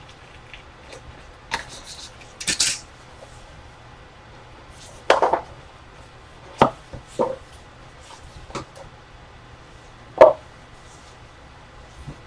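Trading cards and their hard packaging handled on a table: several scattered sharp taps and knocks, with a brief rustle about two and a half seconds in.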